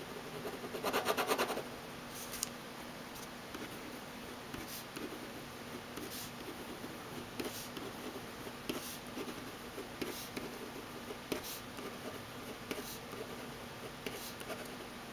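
Uni-Ball Vision RT 0.6 mm rollerball pen scratching on paper. A fast back-and-forth scribble about a second in is the loudest part, followed by a long run of short pen strokes as words are written.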